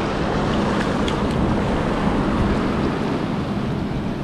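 Surf washing over lava rocks at the shoreline, a steady noisy wash with wind rumbling on the microphone.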